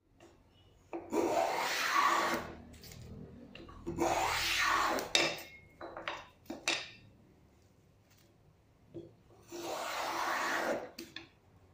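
Hand plane shaving a wooden board: three strokes, each about a second and a half long, with a few light knocks between the second and third.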